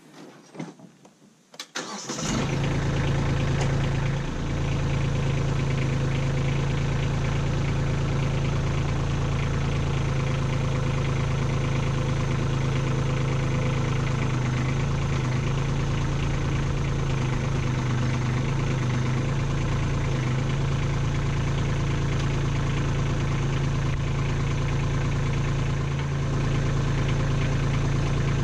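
Kubota B2601 compact tractor's three-cylinder diesel engine starting about two seconds in and then idling steadily.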